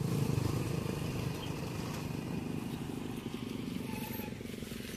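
Motorcycle engine running with a rapid even pulse, slowly growing fainter.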